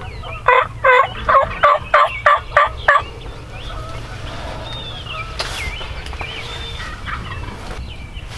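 A run of about eight loud turkey yelps at roughly three a second, lasting a couple of seconds, followed by fainter songbird chirps.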